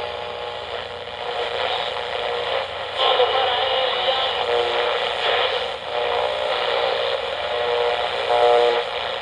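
Dense radio static: a steady hiss with many faint whistling tones tangled through it. It gets a little louder about three seconds in and cuts off abruptly.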